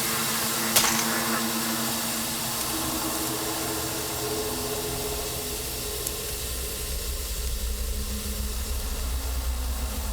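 Eerie drama soundtrack: sustained droning tones over a steady hiss, with one sharp crack about a second in and a low rumble building in the second half.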